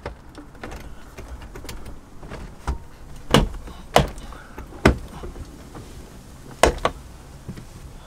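Irregular sharp clicks and knocks, about seven, from the overhead console and its wiring connectors being handled and fitted.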